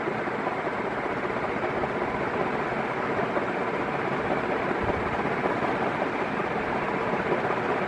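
Northwest Envirofan Heavy Duty Gold Line industrial ceiling fan with a cast-iron motor running steadily: an even rush of air with a faint hum.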